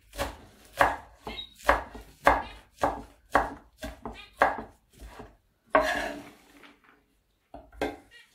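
Chef's knife chopping mallow leaves on a wooden cutting board: a steady run of knocks about every half second that stops about six seconds in, with one more knock near the end.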